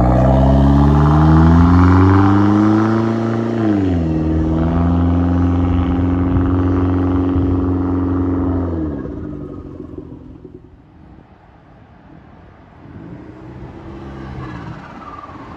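Hyundai Genesis Coupe's 2.0-litre turbocharged four-cylinder under acceleration: the engine note climbs for about four seconds, drops sharply as with a gear change, then holds steady. About nine seconds in the note falls off and fades away, and a fainter engine note comes back near the end.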